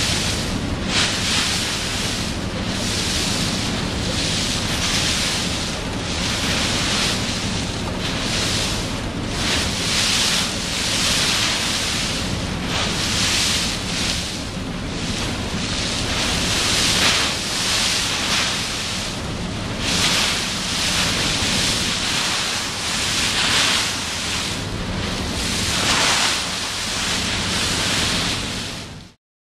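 A ferry's bow wave hissing and splashing against the steel hull as it runs through light chop, surging every second or two over a steady low rumble, with wind on the microphone. It fades out near the end.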